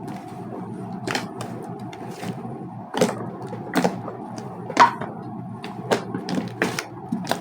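Hands squeezing and stretching a homemade glue-and-shaving-foam slime, making irregular sticky pops and crackles, the loudest snap near the middle.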